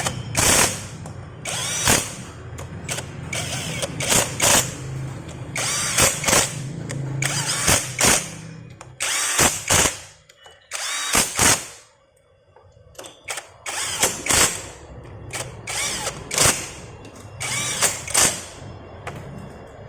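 Power driver spinning in short spurts, about a dozen with uneven gaps and a lull in the middle, as the bolts of a Honda Beat scooter's CVT cover are run in and tightened.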